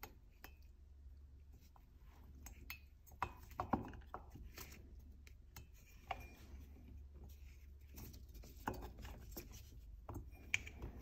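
Faint, scattered clicks and light knocks of a Husqvarna chainsaw's cylinder being worked down over the piston and its pinched ring onto the crankcase, with a few sharper knocks about three to four seconds in.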